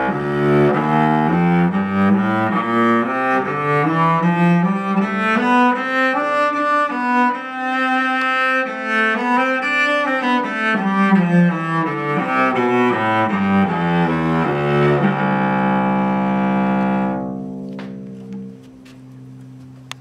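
Scott Cao cello played with the bow: a melodic passage climbing and falling in pitch, closing on a long low held note that dies away about eighteen seconds in.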